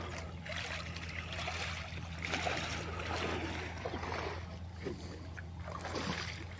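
Faint water sloshing and trickling over a low, steady hum.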